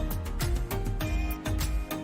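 Background music with a steady beat: drum hits several times a second over a bass line and sustained melodic notes.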